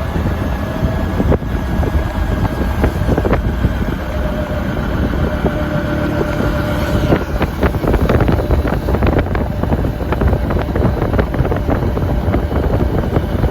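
Wind buffeting the microphone over the steady drone of a running motor, with crackling knocks from about halfway through.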